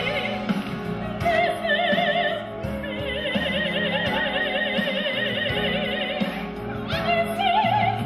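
Operatic singing: a high voice holds long notes with a wide, heavy vibrato over steady instrumental accompaniment, moving to a new higher note near the end.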